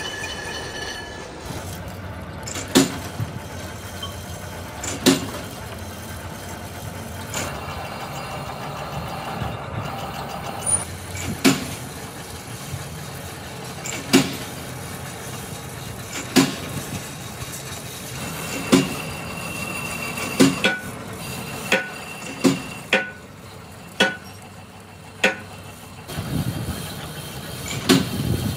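Hammer blows on metal, single sharp strikes about every two to three seconds, coming quicker near the end, some leaving a short metallic ring, over a steady mechanical rumble.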